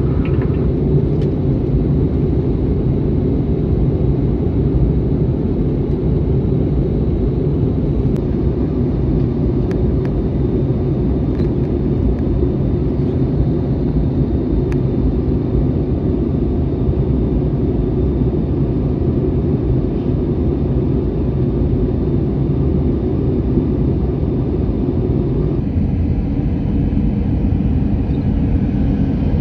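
Airbus A321 airliner cabin noise during the descent: a loud, steady low rumble of engines and airflow. About 25 seconds in the tone shifts and a faint higher hum joins it.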